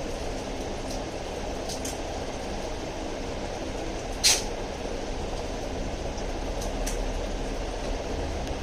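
Steady rushing hum of running aquarium equipment, the water pump and filter. A single sharp click comes a little over four seconds in, with a few fainter ticks around it.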